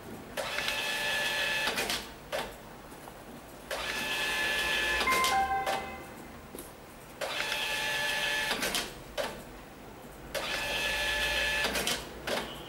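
A small motor whirring in four bursts of about a second and a half each, roughly every three seconds, with a few short high tones near the middle.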